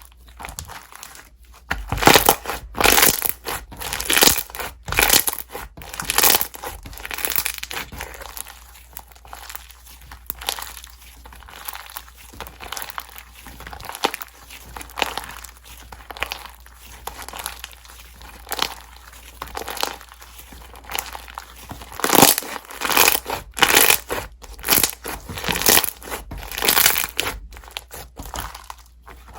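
Hands squeezing, folding and stretching a slime, making quick irregular runs of sticky clicks and pops, busiest near the start and again near the end.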